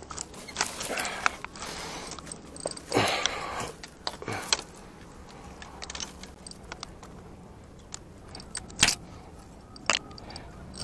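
Bamboo stalks and leaves rustling and scraping as someone climbs down through a bamboo clump, with a few sharp knocks of stalks and gear. The loudest knocks come near the end.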